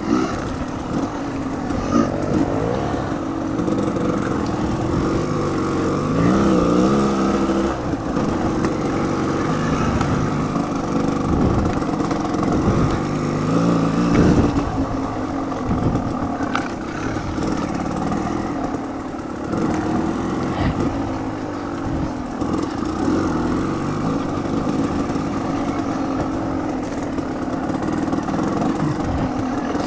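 Off-road motorcycle engine running under load, its revs rising and falling again and again with the throttle.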